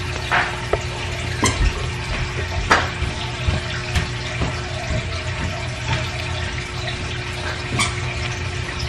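A steady rushing noise with a low hum under it, broken by a few light clicks and knocks.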